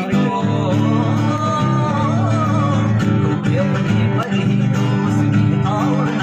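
Background music: a song led by acoustic guitar, with a voice singing a melody over steady strummed chords.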